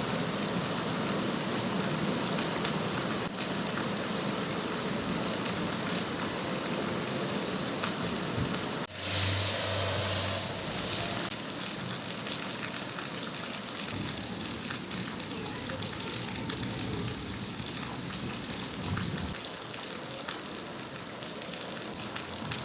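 Steady hiss of rain during a thunderstorm, with a sudden louder burst of hiss about nine seconds in that lasts a second or two.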